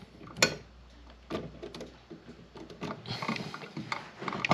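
Light clicks and metal scraping from a receptacle being pushed into a metal electrical box while a driver bit is set on its mounting screw, with a cluster of small ticks in the last second and a half.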